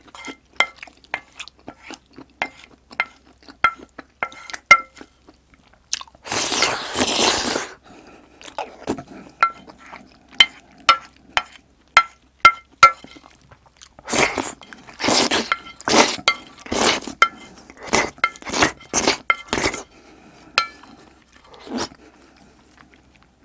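Wooden spoon and chopsticks tapping and scraping a plate to gather the last of the jjajang sauce. Light ticks with a faint ring come about twice a second, with a long scrape about six seconds in and a run of louder scraping strokes from about 14 to 20 seconds in.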